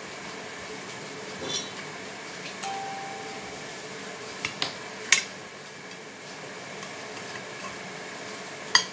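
Metal knife clicking and scraping against a ceramic plate while cutting a slice of sponge cake: a few sharp clinks, the loudest about five seconds in and again near the end.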